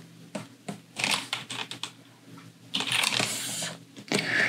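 Scattered computer keyboard and mouse clicks from shortcut-driven image editing, a few separate keystrokes rather than steady typing. A loud rush of noise lasting about a second comes about three seconds in.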